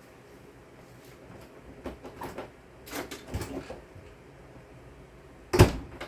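A door being opened, with scattered clicks and rattles, then a single loud knock near the end.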